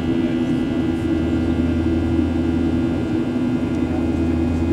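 Steady drone of a Boeing 737's wing-mounted turbofan engine in flight, heard from inside the cabin: a deep hum and a few steady whining tones over a constant rush of air.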